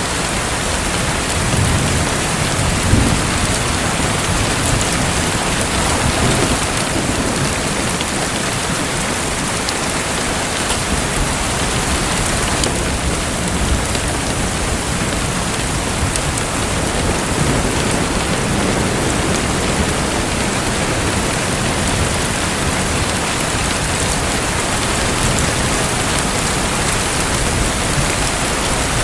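Steady, dense hiss of falling, splashing water, like heavy rain, with a few brief low rumbles.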